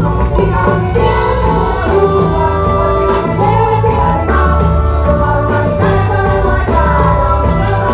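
A Brazilian band playing forró music live, with singing over a steady bass line and fast shaker percussion.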